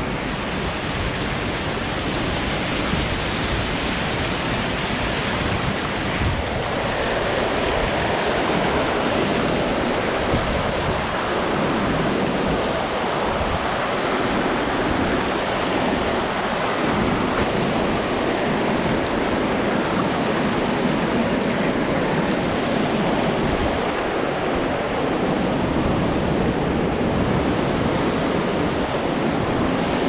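Small creek waterfall rushing: a loud, steady wash of falling water close by, its tone shifting slightly about six seconds in.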